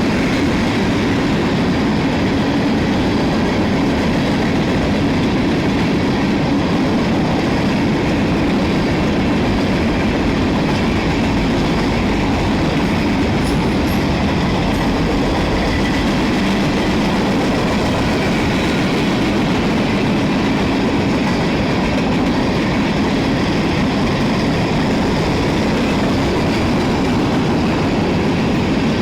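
Freight train rolling past, its railcars' wheels clattering steadily on the rails.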